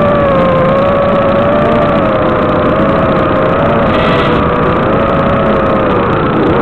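FPV quadcopter's brushless motors and propellers whining in flight over a steady hiss, the pitch wavering slightly up and down as the throttle changes.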